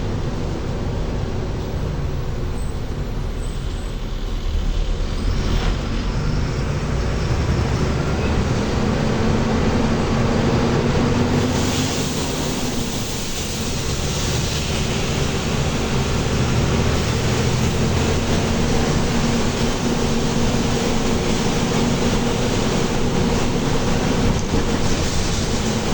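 Mercedes-Benz OF-1724L bus diesel engine running as the bus drives, with road noise. It gets louder about five seconds in and dips briefly near the middle.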